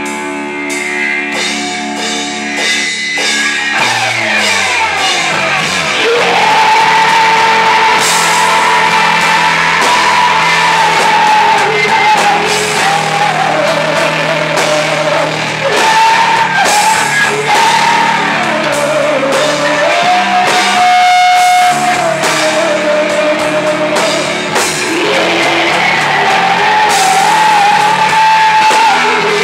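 Live rock band playing electric guitars and drums, with a woman singing long held notes into a microphone. The opening seconds are a ringing chord over a steady beat, and the vocal comes in about six seconds in.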